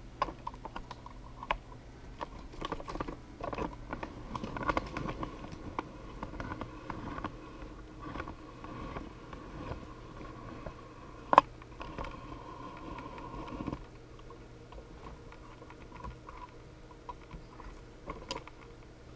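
Handling noise as a clear acrylic resin vat is moved and set down on the DLP resin 3D printer: small clicks, taps and rustles, with one sharp click about eleven seconds in. The handling is quieter over the last few seconds, leaving scattered ticks over a faint steady hum.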